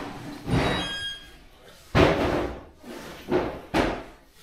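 Several sharp knocks and bangs, the loudest about two seconds in.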